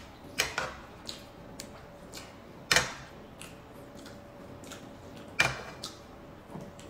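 Metal serving tongs clinking against a frying pan while food is lifted out: three sharp clicks a couple of seconds apart, with a few fainter ticks between.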